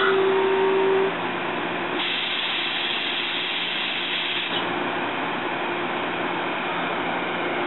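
Passenger rail coach standing at a platform: a steady hum from its equipment, a held tone that stops about a second in, and a hiss of air lasting about two and a half seconds in the middle.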